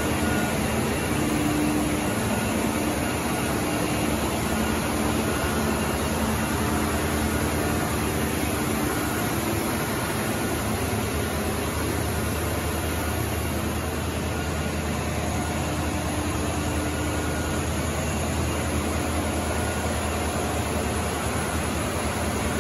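Guascor gas engine-generator set running steadily on digester methane: a loud, even engine drone with a deep steady hum.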